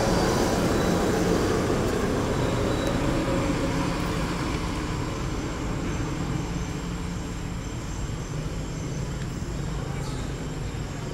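Steady low rumble of background noise, with no distinct events, slowly fading a little over several seconds.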